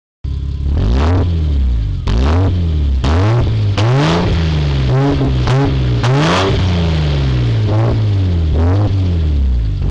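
Jaguar XJ40's straight-six engine being revved through a custom stainless-steel exhaust: about eight quick throttle blips, the pitch rising and falling back each time, one held a moment longer about four seconds in.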